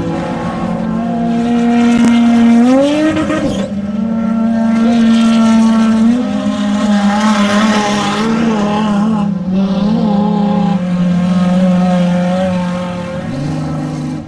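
Off-road desert race truck engines running hard, the pitch holding, then gliding up and dropping back several times as the throttle changes. There is a clear rise a little over two seconds in.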